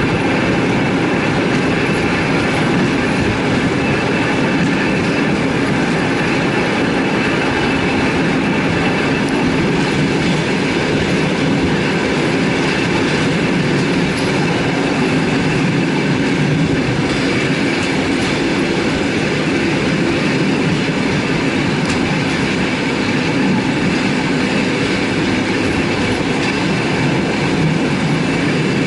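Passenger train running at a steady pace, heard from aboard: a continuous, even rumble of wheels on rails.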